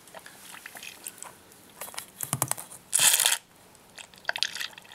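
Plastic sucker bottle drawing water, sand and fine gold out of a gold centrifuge's bowl rings as it is squeezed and released: crackling plastic and slurping, with clusters of clicks and one short, loud burst of noise about three seconds in.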